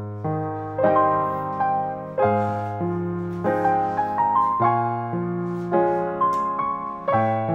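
Background piano music: a melody of struck notes over held low notes.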